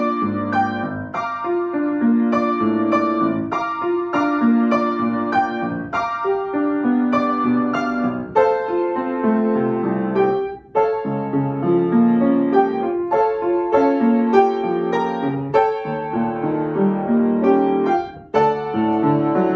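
Upright acoustic piano played solo: a melody over a steady run of accompanying notes and a low bass line, with two brief breaks between phrases, about ten and eighteen seconds in.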